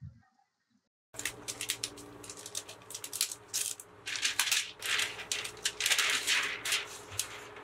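Plastic protective wrap crinkling and rustling as it is pulled off a laptop. It starts about a second in after a near-silent moment and is loudest in the second half.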